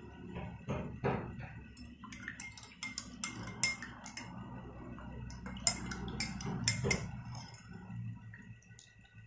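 Metal spoon stirring a drink in a fluted glass tumbler, clinking against the glass in quick, irregular taps, most of them between about two and seven seconds in.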